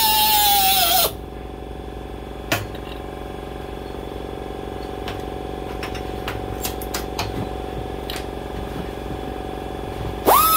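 Central Pneumatic composite air die grinder with a cut-off wheel whining at high speed while cutting steel tubing, then cutting off about a second in. A steady low hum follows, with a knock and a series of light metal clicks as the tubing and locking clamp are handled. Near the end the grinder spins back up with a sharp rising whine that settles into its running pitch.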